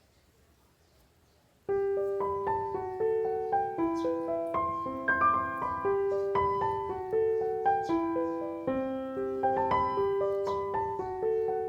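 Background piano music: near silence for under two seconds, then a quick, steady run of light piano notes.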